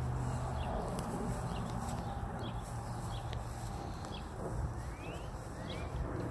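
Outdoor ambience: a steady low rumble with faint small-bird chirps scattered throughout, and two short rising whistles about five seconds in.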